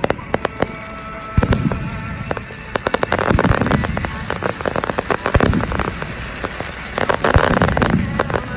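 Aerial fireworks shells bursting in quick succession with deep booms, and dense crackling from crackle-effect shells about three seconds in and again near the end.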